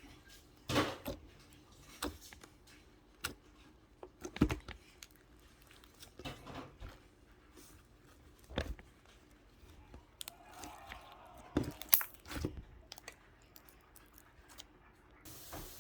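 Scattered sharp crunches and clicks, one every second or two, with quiet in between; a faint hiss comes in near the end.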